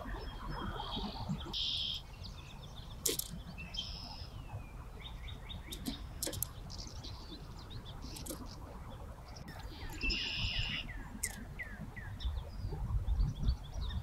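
Small birds chirping in a marsh: scattered short high chirps and quick falling notes, busiest about ten seconds in, over an uneven low rumble.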